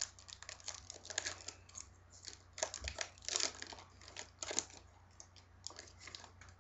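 A trading card pack's wrapper being torn open and crinkled by hand, in irregular bursts of crackling.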